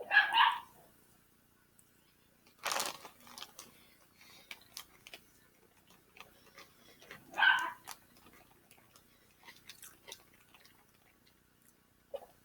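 A dog barking twice, a single short bark near the start and another about seven seconds later, with faint crunching and clicking eating sounds between.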